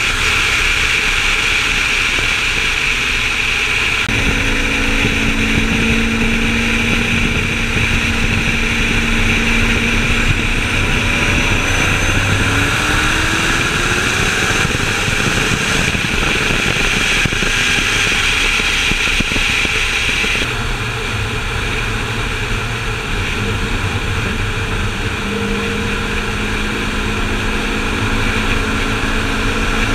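Turbocharged Corvette engines running at a steady cruise, alongside a constant rush of wind and road noise. The loudness stays even, with no hard full-throttle pull.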